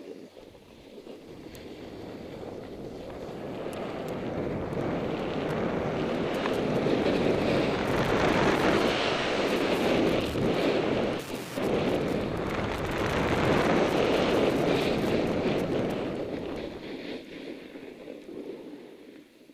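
Wind rushing over a helmet camera's microphone mixed with a snowboard sliding and scraping over packed snow on a downhill run. The rush swells gradually, is loudest in the middle with a short break about eleven seconds in, and fades away near the end.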